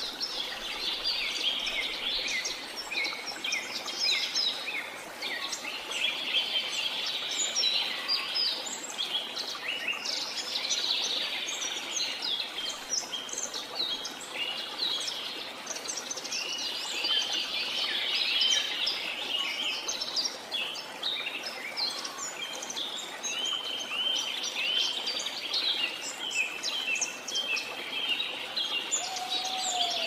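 Songbirds chirping and singing busily throughout, over the steady splashing of a small forest stream pouring over a little drop into a pool.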